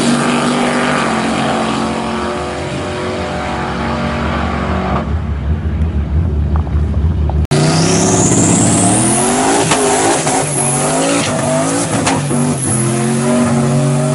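Turbocharged pickup truck engine running hard as the truck pulls away down the drag strip, growing fainter. After a sudden break, a second turbo pickup revs up and down with a rising whistle and spins its rear tyres in a smoky burnout.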